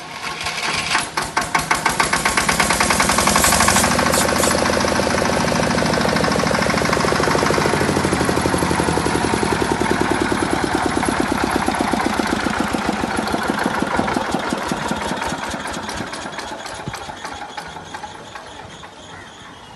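Diesel engine of a 10 kVA generator set starting up, its rapid exhaust beats quickening and growing louder over the first few seconds, then running steadily with a knocking beat. In the last few seconds the beats slow and fade as the engine runs down.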